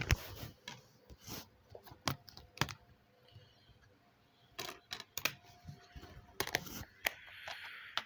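A series of irregular sharp clicks and light knocks, a dozen or so with short quiet gaps between them.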